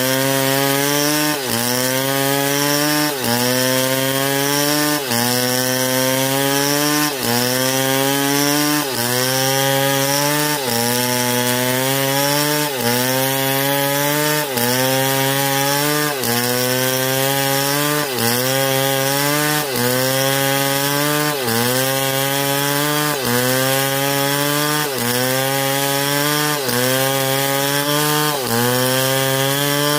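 STIHL MS661 two-stroke chainsaw running under load in a cut. The engine note drops sharply and then climbs back about every two seconds, over and over.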